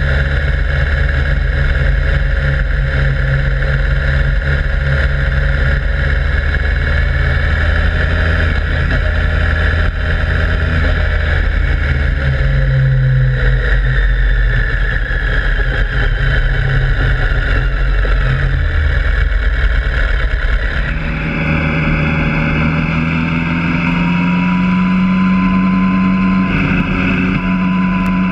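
Motorcycle engine running at a steady, nearly constant speed while cornering, heard from a camera mounted on the bike and mixed with wind and road noise. The sound changes abruptly about two-thirds of the way through, and after that the engine note rises slowly.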